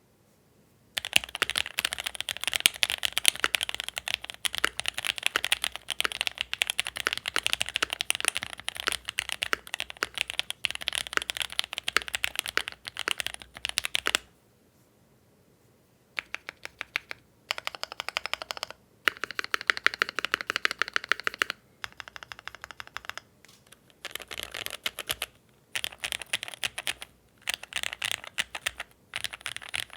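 Keychron Q2 mechanical keyboard with FLCMMK Ice Mint linear switches and PBT keycaps being typed on: a fast, unbroken run of keystrokes for about thirteen seconds, a pause of about two seconds, then shorter bursts of typing with brief gaps between them.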